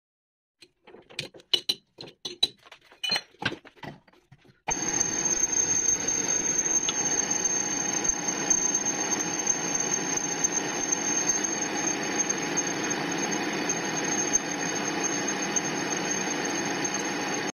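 Metal lathe running and turning a metal shaft held between chuck and tailstock centre: a steady machining noise with a constant high-pitched squeal on top, starting suddenly about five seconds in. Before it, a scatter of light metallic clicks and clinks.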